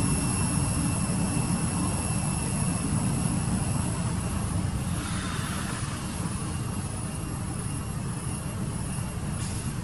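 A steady low rumble that fades slightly over the seconds, with faint, thin, steady high tones above it.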